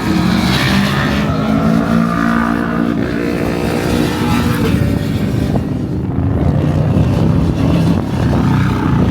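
Sport motorcycles circling the race track, their engine notes rising and falling in pitch as they pass.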